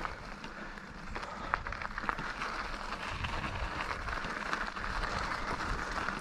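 Mountain bike rolling over a rough dirt trail: tyre rumble with frequent small rattles and knocks from the bike.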